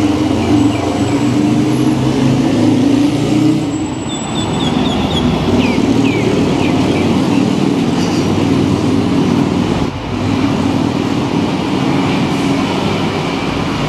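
Steady street traffic noise, with a low engine drone over the first few seconds. A few short high chirps come between about four and seven seconds in.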